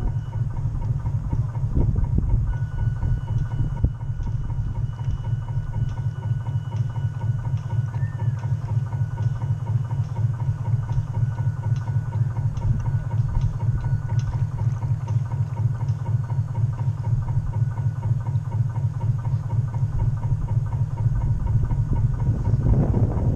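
Radio-controlled model boat's drive running steadily, a low pulsing hum from on board, getting louder near the end.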